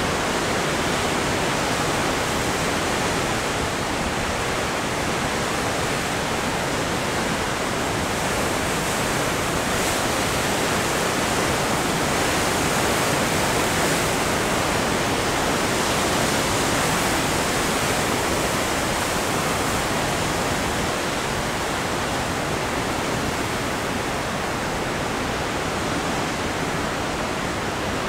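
Heavy ocean surf breaking over rocks and churning white water: a steady, unbroken wash of noise.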